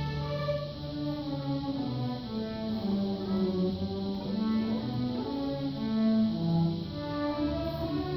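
Middle school orchestra with violins playing a piece live, several parts holding sustained notes that change about every second.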